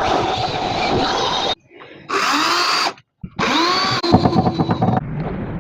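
A handheld power tool working wood in several separate runs, its motor pitch sliding up and down within each run; the sound cuts off abruptly between runs.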